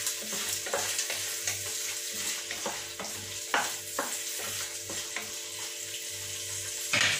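Prawns sizzling in an enamel pot as a wooden spatula stirs them, with repeated scrapes and knocks of the spatula against the pot. The loudest scrape comes near the end.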